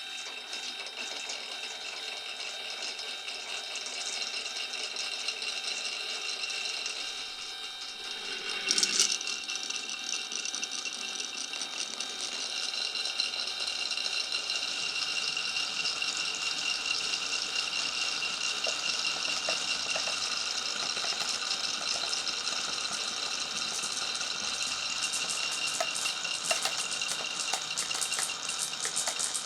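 Glass marbles rolling and rattling along a marble run's tracks, a steady clatter with a brief louder jolt about nine seconds in and more small clicks near the end.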